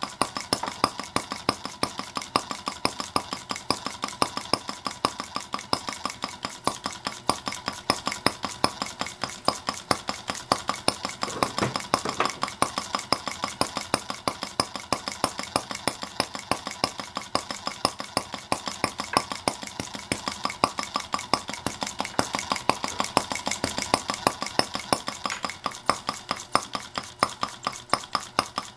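Miniature Stirlingkit Benz model engine, a single-cylinder four-stroke gasoline replica, running steadily with a quick, even metallic ticking beat from its firing and valve gear.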